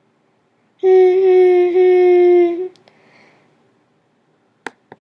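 A train-horn toot for the toy train: a steady, loud horn-like tone held for about two seconds with a brief dip in the middle. Two small clicks follow near the end.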